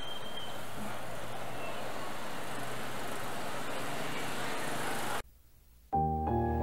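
Steady outdoor ambience, an even hiss like distant road traffic, which cuts off abruptly about five seconds in. After a brief silence, soft music begins near the end.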